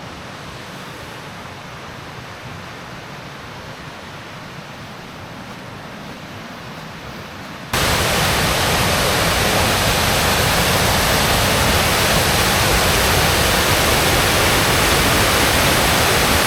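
Steady rush of a waterfall in spate, swollen by rain and snowmelt. It is moderate at first, then abruptly much louder about eight seconds in.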